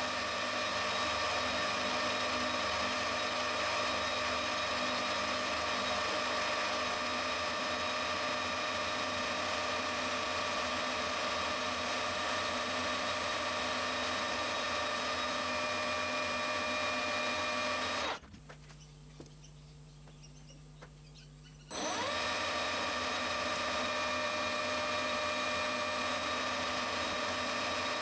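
Metal lathe running and turning aluminium round stock, a steady machine whine with several fixed tones. About 18 seconds in the sound drops away abruptly, leaving only a low hum for a few seconds, then comes back.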